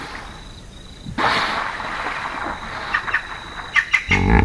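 Hippopotamus call beginning near the end as a loud, deep grunting sound, after a breathy, noisy rush about a second in and a few scattered clicks. A faint, steady high-pitched whine sits underneath.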